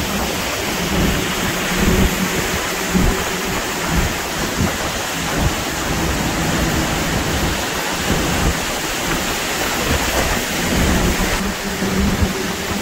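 Hurricane eyewall wind and driving rain: a loud, dense, steady rush of wind-blown rain, with gusts buffeting the microphone in irregular low thumps and swelling louder now and then.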